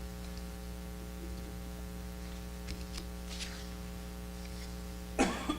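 Steady electrical mains hum through the pause, with a few faint small ticks and rustles. A man's voice breaks in near the end.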